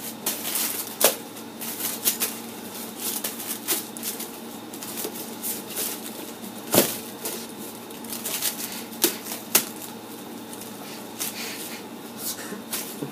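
Aluminium foil crinkling and crackling in irregular bursts as it is crumpled and shaped by hand around a cup, with one sharper knock about seven seconds in. A faint steady hum lies underneath.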